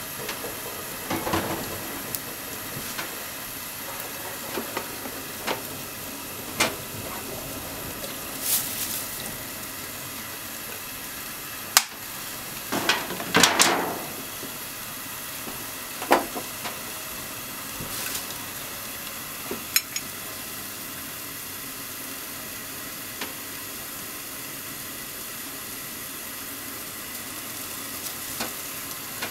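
Potatoes and onions sizzling in a covered frying pan under a glass lid: a steady hiss with scattered pops and crackles, and a cluster of louder spatters about halfway.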